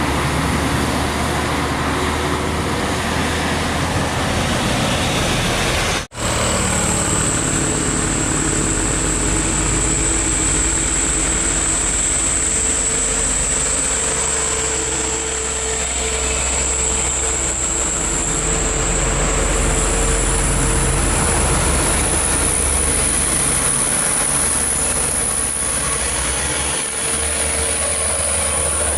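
Heavy truck engine running under load on a steep climb, a steady, dense rumble with a high whine over it. The sound cuts out for an instant about six seconds in.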